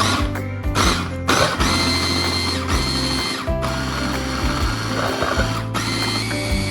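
Electric food processor whirring as it chops onion and parsley into a paste, stopping briefly a couple of times, over background music.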